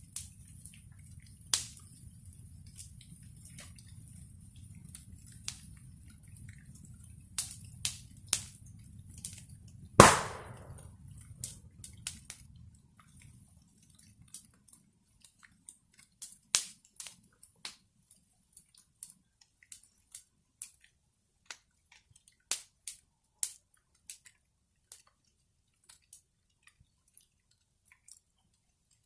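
Wood bonfire crackling, with irregular sharp pops and one loud pop about ten seconds in. A low rumble underneath fades out after about thirteen seconds, leaving sparse crackles.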